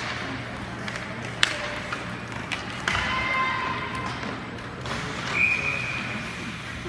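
Referee's whistle blown with one held note about five seconds in, amid ball thumps and a sharp knock about a second and a half in.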